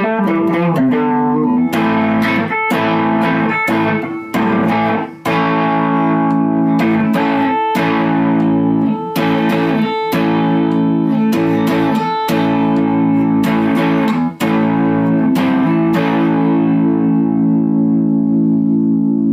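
Taylor SolidBody electric guitar played fingerstyle: a steady run of plucked notes and chords, the strings left ringing between strikes.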